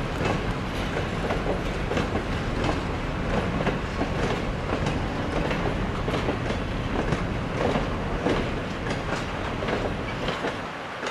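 Freight train of open wagons rolling on the rails, its wheels clattering over the rail joints in a run of repeated clacks over a steady rumble, easing slightly near the end.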